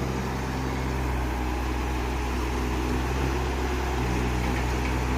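TITAN T20 mini excavator engine running steadily.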